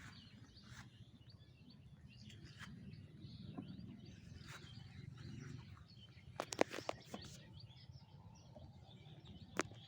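Faint outdoor ambience with small birds chirping now and then over a low steady hum. A few sharp clicks stand out, a quick cluster about two-thirds of the way in and one more near the end.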